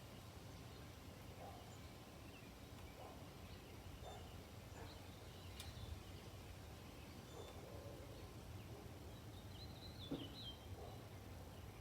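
Faint suburban outdoor ambience: a steady low background rumble with faint bird calls repeating every second or so, a higher chirping call near the end, and a couple of small clicks.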